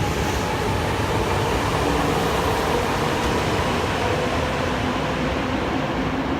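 Train running: steady running noise with a few faint humming tones that shift a little in pitch.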